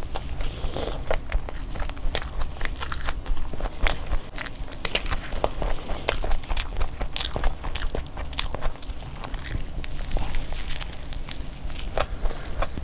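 Close-up eating sounds of soft-bun chicken burgers: bites and chewing, with many sharp, wet mouth clicks throughout.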